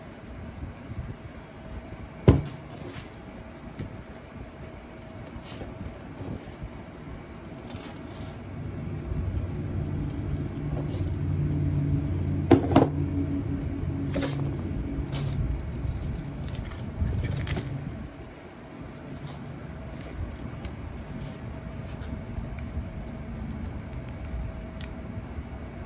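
Sharp metallic clicks and rattles of pliers and cut copper winding wire being worked out of a refrigerator compressor motor, over a steady hum. In the middle a low rumble swells up for several seconds and then fades.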